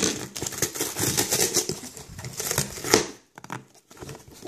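Cardboard parcel being worked open by hand: scraping, crackling and tearing of cardboard and packing with many short clicks. About three seconds in it goes much quieter, leaving only a few faint clicks.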